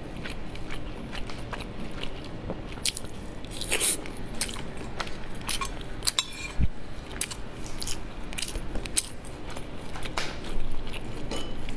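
Close-up chewing: irregular wet mouth clicks and smacks as a mouthful of food is chewed.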